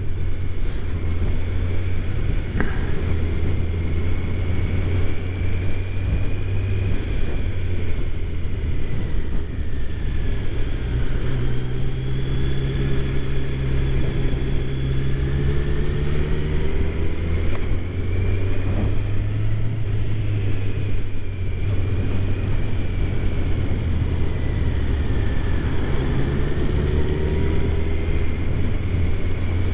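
A 2019 Kawasaki Z900's inline-four engine running steadily under way, its engine speed rising and falling a few times.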